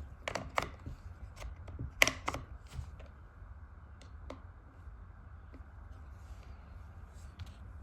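Sharp clicks and taps from chainsaw handle and trigger parts being handled and fitted by hand, several in the first three seconds with the loudest about two seconds in, then only a few faint ones over a low hum.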